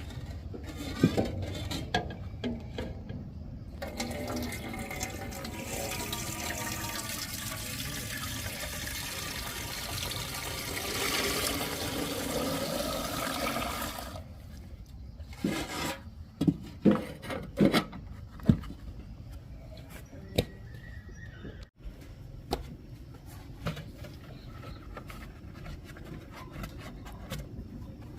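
Water running or pouring for about ten seconds, rising a little in pitch near the end as if a container fills, then stopping; several sharp knocks and clatters follow.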